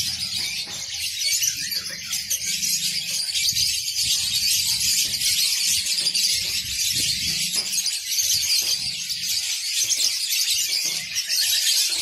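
Many caged songbirds chirping and twittering at once in a dense, continuous high-pitched chorus.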